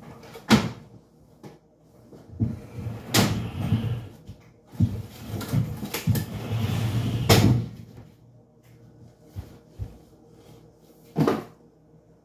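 Kitchen clatter: several sharp knocks of doors and objects being handled, with a few seconds of rustling and shuffling in the middle.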